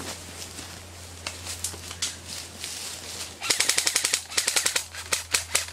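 Footsteps through leaf litter, then about three and a half seconds in a rapid clatter of airsoft gunfire: a fast full-auto burst followed by scattered single shots.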